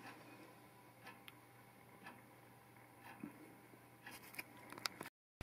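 Near silence: quiet workshop room tone with a few faint small clicks and taps, a handful of them close together near the end.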